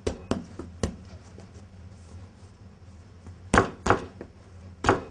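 Hands slapping and pressing bread dough against a wooden worktop while shaping a baguette. There are a few light slaps at the start, then a loud pair about three and a half seconds in and another pair near the end.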